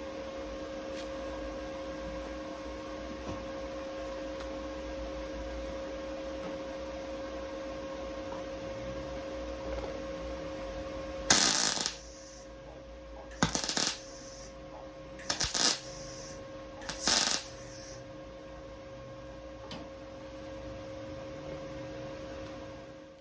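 MIG welder laying four short tack welds on car body steel, each burst under a second, over a steady electrical hum.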